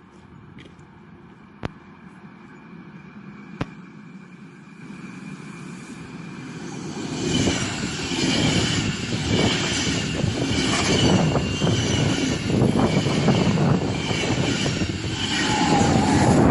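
Train passing through at speed without stopping: a faint rumble with two sharp clicks grows, from about six seconds in, into loud rushing wheel-and-rail noise with a rhythmic clatter, which drops away suddenly at the very end as the train clears.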